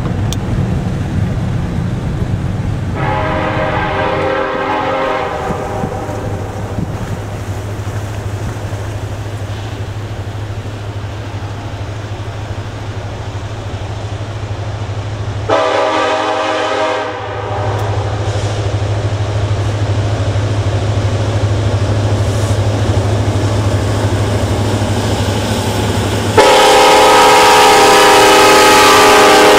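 Freight locomotive horn on CN's EMD SD70M-2 8858 sounding for a level crossing: a chord blast about 3 s in, another about 15 s in, and a very loud, long blast from about 26 s in as the locomotives pass close. A steady low drone runs between the blasts.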